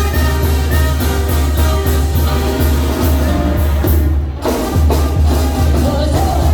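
Loud Latin dance music with heavy bass and a steady drum beat. It breaks off briefly about four seconds in, then the beat comes back.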